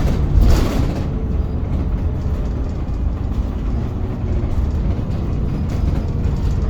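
VDL Pulsar single-decker bus on the move, heard from inside: a steady low running rumble, with a short hissing burst about half a second in.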